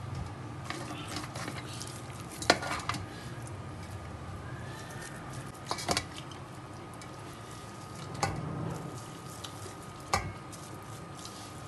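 Fried mutton chops being rubbed with marinade by hand and set down in a stainless-steel tray, the bones and meat knocking against the metal now and then, with a few sharp knocks about every two seconds over a steady low hiss.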